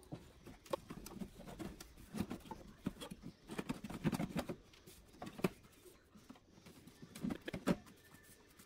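Upper wheel-pant fairing of a light aircraft being worked loose and lifted off over the wheel: irregular light knocks, taps and scrapes of the fairing and hands against the landing gear, loudest a few times about four, five and a half and near eight seconds in.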